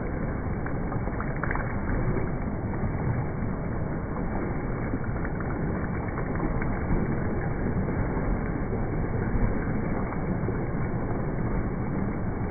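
Steady splashing of a swimmer's flutter kick on a kickboard, a continuous churning wash of water.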